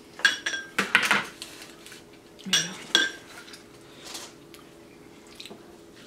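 Glass serving dishes and plates clinking and knocking as food is picked out of them: several sharp, ringing clinks in the first three seconds, then only a few soft taps.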